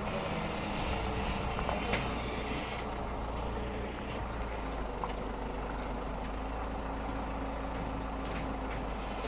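A vehicle engine running steadily at low revs, with a few faint clicks.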